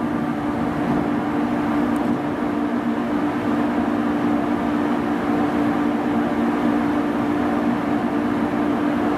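JR Kyushu 817 series electric train standing at the platform, its onboard equipment giving a steady hum with one strong low tone.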